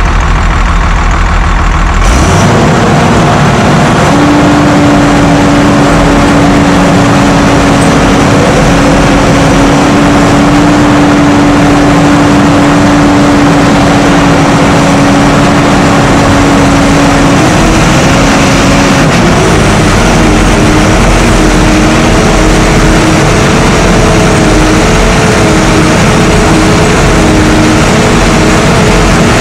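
Morooka tracked carrier's engine running hard as the machine moves off. It picks up about two seconds in, and a steady whine comes in that shifts pitch and wavers over the second half.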